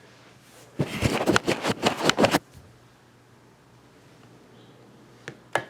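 A quick rattling run of sharp clicks lasting about a second and a half, then two single clicks near the end.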